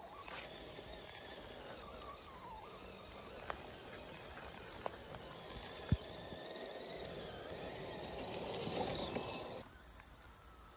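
Electric motor and drivetrain of a Defender 110-bodied RC scale crawler whining as it drives over a forest trail, with a few sharp clicks from the tyres on twigs and stones, the loudest about six seconds in. The sound grows louder as the truck comes close, then cuts off abruptly near the end.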